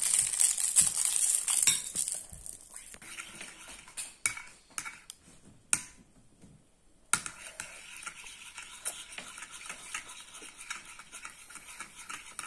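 A teaspoon stirring and scraping a thick, runny blue mixture of shampoo, toothpaste and paint in a ceramic bowl, with small clicks of the spoon against the bowl. It is loudest in the first two seconds and stops for about a second just after halfway before going on.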